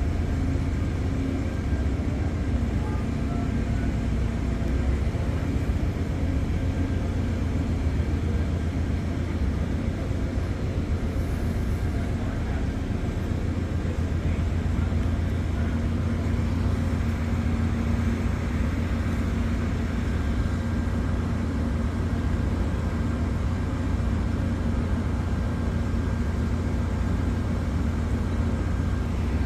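Freight train rolling past, a steady low rumble of its cars on the rails with no break.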